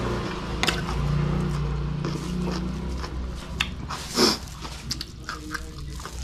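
Close-up mouth sounds of a man eating raw vegetables and rice: chewing, lip smacks and small clicks of the spoon, over a low steady hum in the first half. One louder, short hissing noise about four seconds in.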